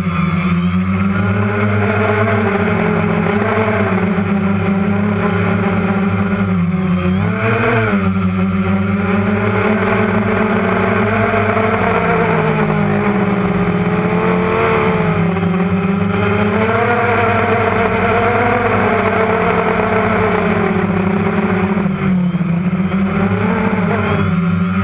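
DJI Phantom quadcopter's motors and propellers running steadily, several pitches wavering up and down together as the throttle changes, with a brief rise about seven seconds in.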